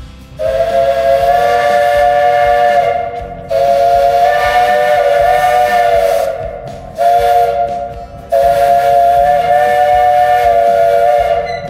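Steam whistle of a 1927 Vulcan narrow-gauge steam locomotive blowing a chord of several tones in four blasts: long, long, short, long, the standard warning signal for a grade crossing.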